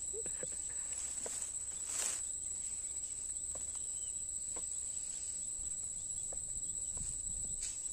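Insects chirring steadily at a high pitch, with faint scattered clicks and a brief light clatter about two seconds in as sugarcane pieces are handled on a plastic toy dump truck.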